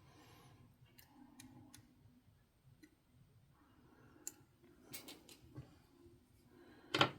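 Faint handling noise from a model locomotive's small plastic parts being worked by hand, with scattered light clicks and taps and a sharper click about seven seconds in.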